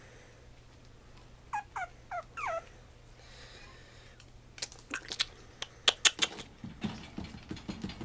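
A Pomeranian puppy gives four quick high squeaks, each falling in pitch, about a second and a half in. Then come sharp clicks and taps with soft rustling as it paws and noses at the wire pen bars and the cushion.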